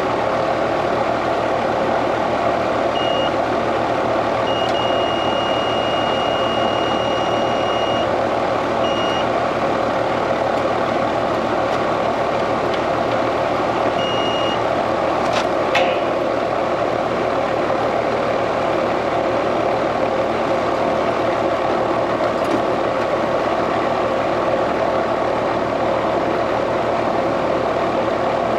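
Digital multimeter's continuity beeper sounding a few short beeps and one long beep of about three and a half seconds, between about 3 and 14 seconds in, while testing for continuity to ground. Under it is a steady loud whooshing noise, and there is a single sharp click just after halfway.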